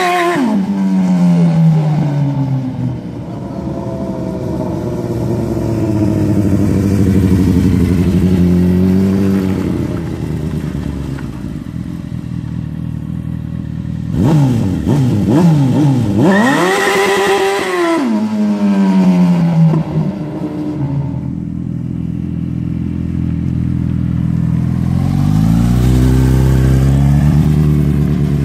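Go-kart's 1000cc motorcycle engine running and revving as it drives, its pitch falling from high revs at the start, then climbing hard about halfway through and dropping back, and rising again near the end.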